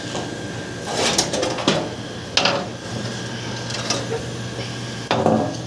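Sheet-metal cover of an air conditioner outdoor unit being taken off: several short knocks and scrapes of metal panels, about four, over a steady low hum.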